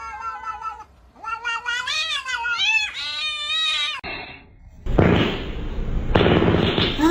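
Domestic cat yowling: two long, drawn-out meows with wavering pitch, the second rising and falling. Loud music starts about five seconds in.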